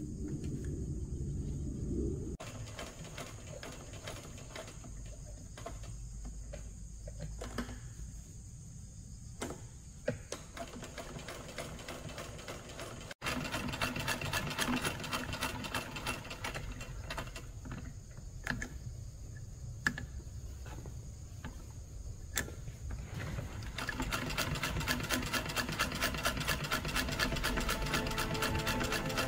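1953 Singer sewing machine, Scottish-made, stitching through cloth: the needle and shuttle mechanism clicking in a rapid, even rhythm. The stitching gets louder and quicker after about 13 seconds and is fastest near the end.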